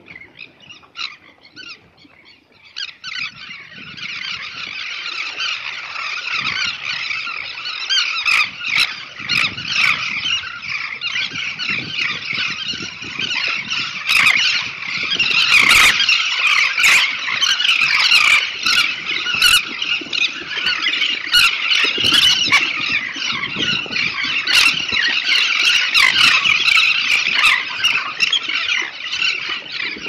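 A nesting colony of elegant terns calling, many birds at once in a dense chorus. It starts with a few scattered calls, swells about three seconds in and stays loud throughout, with scattered sharp clicks over the top.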